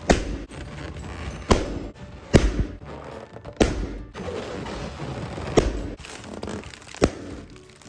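Rubber balloons being popped by hand: six sharp pops about one to two seconds apart, with rubbery squeaking and rubbing between them.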